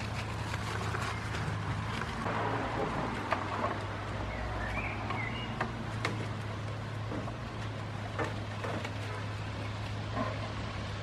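Goats tearing at and chewing leafy plants: leaves rustling and stems snapping in scattered sharp clicks, over a steady low hum.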